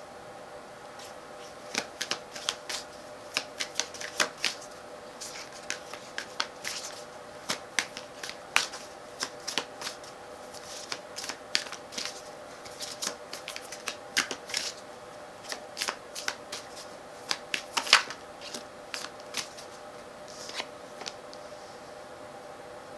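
A deck of tarot cards being shuffled by hand: a run of quick, irregular flicks and snaps of card edges, with a steady hum underneath.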